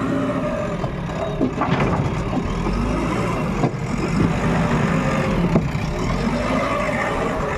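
JCB backhoe loader's diesel engine running steadily, its pitch rising and falling with the load, with a few sharp knocks and clanks.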